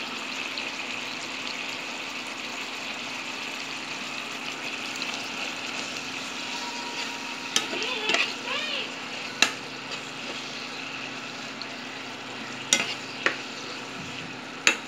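Food sizzling steadily as it fries in a pan and is stirred, with several sharp clicks of a utensil striking the pan in the second half.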